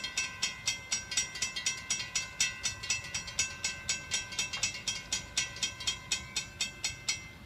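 Railroad grade-crossing warning bells ringing in rapid, evenly spaced strikes: the crossing is activated and its gates are lowering for an approaching train.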